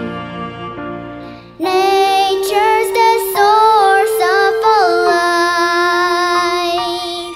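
Song music: a quieter instrumental accompaniment, then a child's voice comes in singing loudly about a second and a half in, gliding between notes and ending on a long held note.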